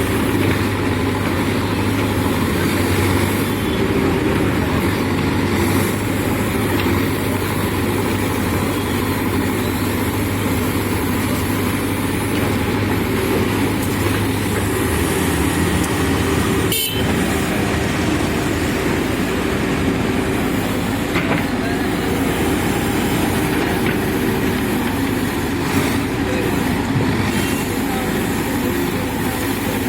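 Diesel engine of a JCB backhoe loader running steadily as it works. A low hum under it fades out about halfway through, and there is a brief dropout a little after that.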